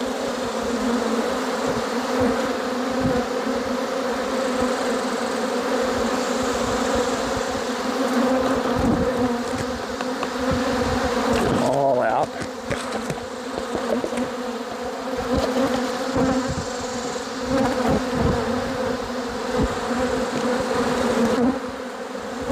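Loud steady buzzing of many honey bees flying around an opened hive, a low hum with its overtones. The pitch briefly slides about twelve seconds in, and a few light knocks are heard.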